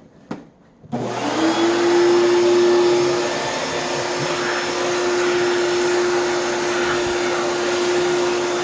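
Hoover canister vacuum switched on about a second in, its motor quickly spinning up and then running steadily with a constant whine.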